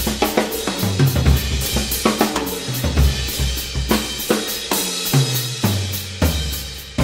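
Ludwig drum kit played in a fast solo: quick fills across the tuned toms and bass drum, the drum pitches stepping from note to note, with cymbals ringing over them.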